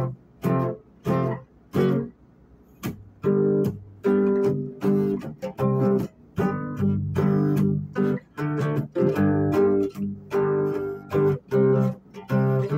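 Acoustic guitar strumming chords. There are short, separate strokes with gaps at first; from about three seconds in the chords come more continuously and ring on.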